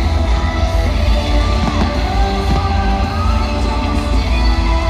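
Loud show soundtrack music over a fireworks display, with a heavy bass and held pitched tones.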